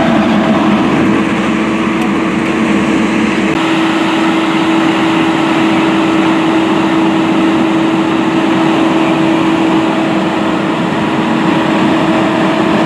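Fire engine running steadily, a loud mechanical drone with a constant hum through it; the low rumble drops away about three and a half seconds in while the hum carries on.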